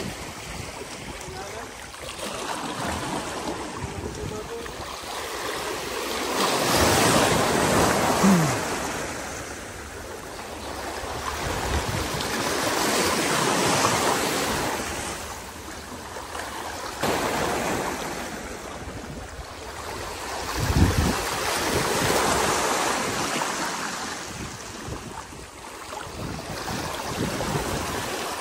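Small sea waves washing and lapping in slow surges about every seven seconds, with wind on the microphone and a couple of low bumps.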